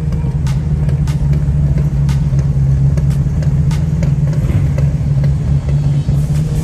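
Engines of a line of classic V8 muscle cars idling and creeping along, a steady deep rumble.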